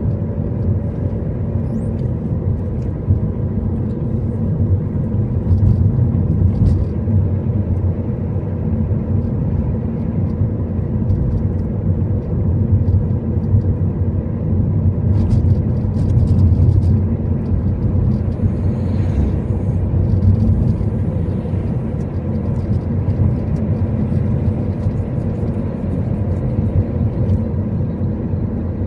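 A car driving: steady low engine and road rumble, with a few faint ticks and rattles over it.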